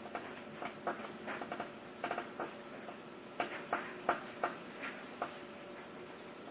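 Irregular light clicks and taps from hand work on small metal parts, loudest a little past halfway, over a faint steady hum.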